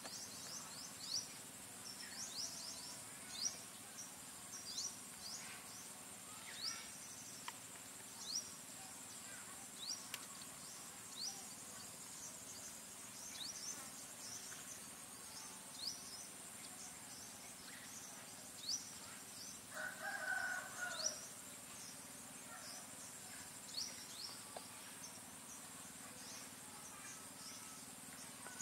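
Outdoor rural ambience: short high chirps, each sliding quickly downward, repeat irregularly every half second to a second over a steady high insect drone. About twenty seconds in there is one louder call lasting about a second, which could be a distant rooster.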